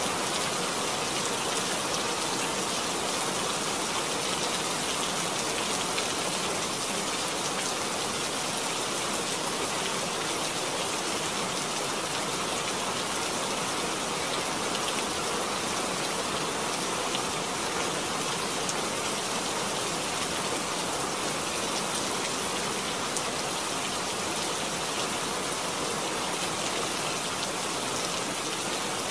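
Rain falling steadily, a dense, even patter of drops that holds the same strength throughout.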